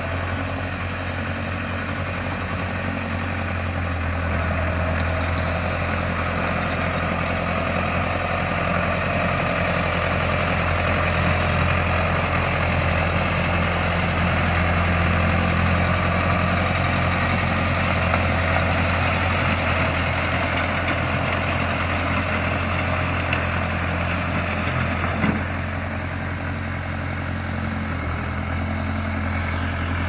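1960s Case loader tractor's engine running steadily as it drives over the spread rock, getting a little louder about four seconds in. A single sharp knock comes late on, after which the engine eases off slightly.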